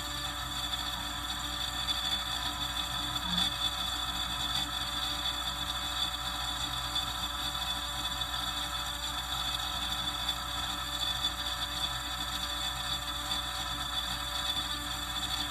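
Failing household refrigerator running with a continuous mechanical whir and a high-pitched whine over a low hum: the sound of a dying fridge.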